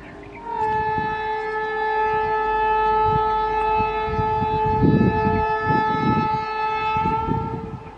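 Indian Railways electric locomotive's air horn sounding one long, steady blast of about seven seconds as the train approaches, with low rumbling underneath in the second half.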